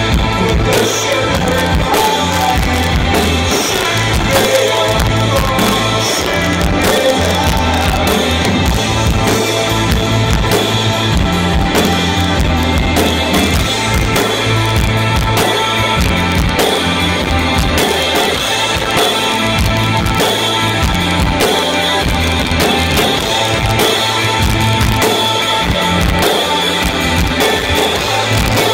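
Live rock band playing at full volume: electric guitars, bass guitar and a drum kit keeping a steady beat.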